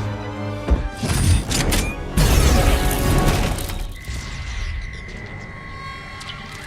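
Film sound effects over music: sharp mechanical knocks and a loud boom-like impact about two seconds in, then a steady high electronic tone.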